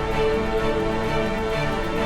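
Background music: sustained orchestral-style tones over a steady low pulse.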